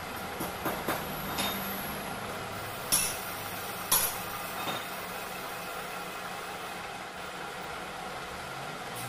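Metal lathe running steadily, spinning a motorcycle cylinder head on its faceplate while the combustion chamber dome is machined. A few sharp metallic clicks come in the first second or so, with the two loudest clinks about three and four seconds in.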